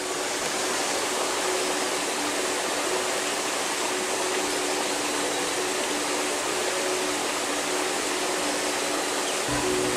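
A steady rushing hiss, with soft background music of long held notes beneath it.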